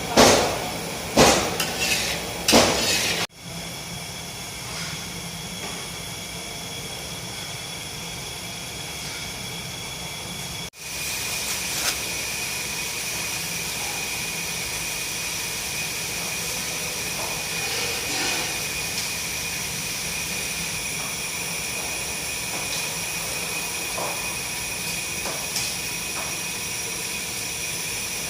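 Kitchen cooking sounds: a few sharp knocks of a utensil against a pan in the first three seconds, then a steady hiss with a faint high whine.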